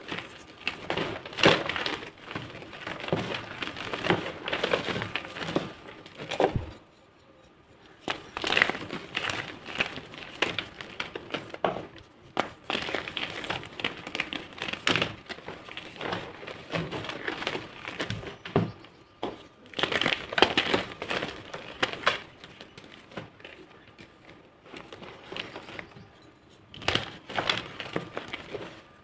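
Blocks of gym chalk being crushed and crumbled, crunching and crackling in irregular clusters of small cracks, with two brief pauses.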